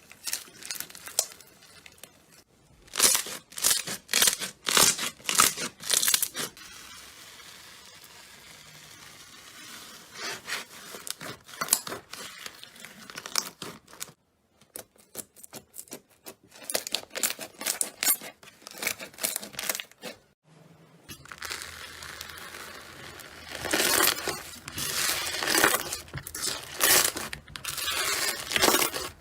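Slime being pressed, poked and stretched by hand, giving runs of sharp crackles and crinkling pops in several short takes.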